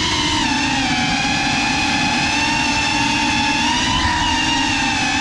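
FPV racing quadcopter's brushless motors and propellers whining at a steady throttle, a high-pitched motor tone with overtones that holds nearly level, dipping slightly about a second and a half in.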